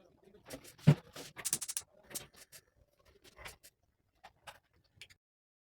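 Kitchen handling noises during cooking: irregular knocks and clicks of utensils and food being handled, with one heavier knock about a second in and a quick run of clicks just after; the sound cuts off abruptly near the end.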